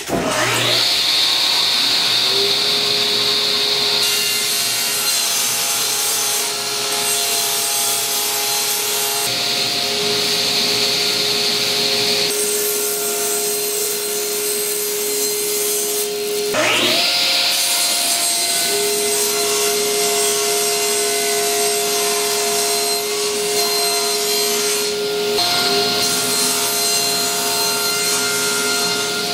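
Power saw starting up and running, cutting Baltic birch plywood into small pieces: a steady motor tone with louder rasping stretches while the blade is in the wood. Just past halfway the motor briefly winds down and starts up again.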